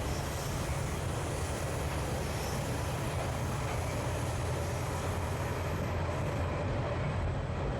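Passenger train running along the track: a steady low rumble with a noisy haze of wheel and carriage sound, heard from an open-air observation carriage.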